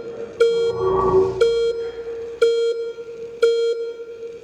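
Electronic beeps, one a second and evenly spaced, each a low buzzy tone with a sharp start and a held, fading tail. A brief noisy whoosh comes about a second in.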